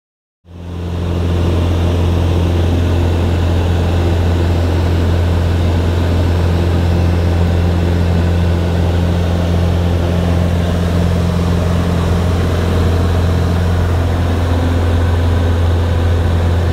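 Jabiru J170 light aircraft's four-cylinder engine and propeller droning steadily in cruise, heard from inside the cabin. The drone starts about half a second in.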